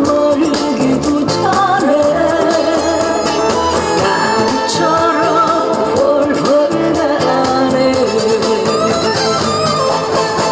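A woman singing into a handheld microphone over instrumental accompaniment, amplified through a PA system.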